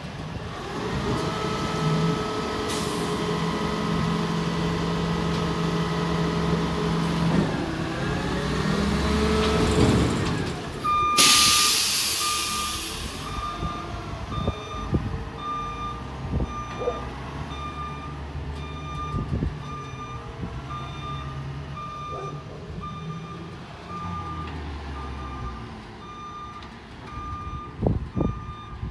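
Front-loader garbage truck's diesel engine running steadily, then rising in pitch. About eleven seconds in comes a loud air-brake release hiss, followed by the truck's reversing alarm beeping steadily as it backs down the street, with the engine running underneath.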